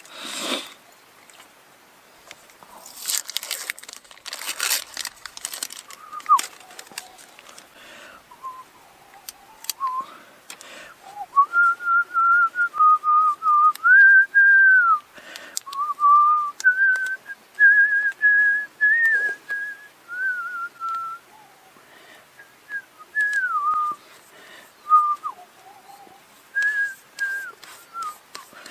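A person whistling a slow, meandering tune: clear single notes with slides between them, some held, with short pauses. A few rustles of a plaster's paper wrapper come a few seconds in, before the whistling starts.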